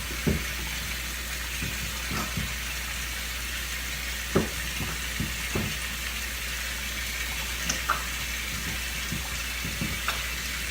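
Kitchen faucet running steadily into the sink, with scattered light knocks and clicks from handling around it.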